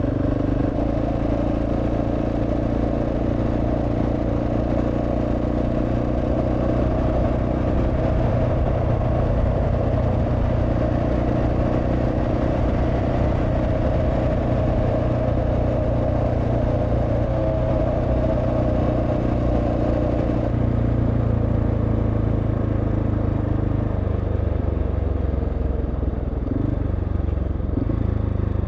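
Dual-sport motorcycle engine running steadily at riding speed on a dirt road, with a constant rush of wind and tyre noise under it. The engine note shifts lower near the end.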